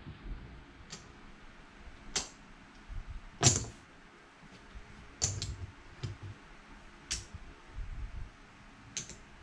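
Clay casino chips clicking as they are stacked onto and lifted off a felt craps layout: a scattering of short separate clicks, the loudest about three and a half seconds in.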